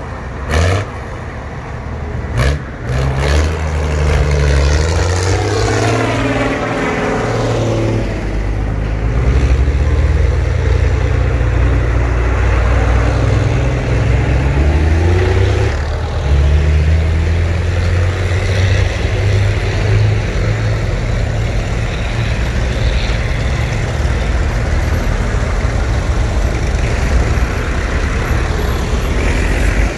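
Vintage tractors driving past one after another, their engines running steadily, the engine note sweeping as a tractor passes close by. A few sharp knocks come in the first couple of seconds.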